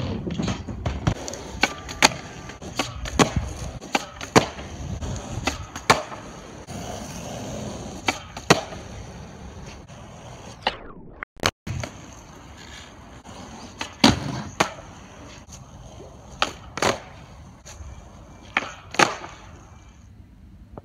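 Skateboard riding: wheels rolling with repeated sharp clacks of trucks and tail on a mini ramp, then, after a break, rolling on asphalt with a few pops and landings around a low box for a boardslide.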